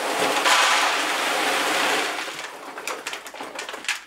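Dry animal feed pouring from a paper sack into a plastic bucket. It starts as a steady rush of grains and, after about two and a half seconds, thins into a scattered patter of a few pieces dropping in.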